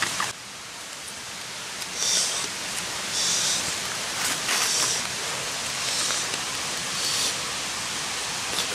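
A tangerine's peel is pulled off by hand in about five short, crisp rips, roughly one a second, over a steady background hiss.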